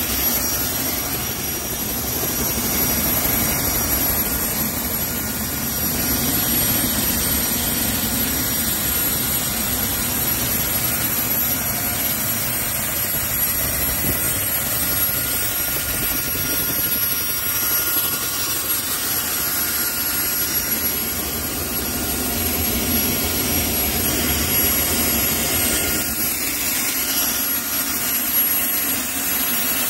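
A Dragonfly helicopter's Solar T62T32 small gas turbine running steadily: a high whine made of several steady tones over a broad rushing noise.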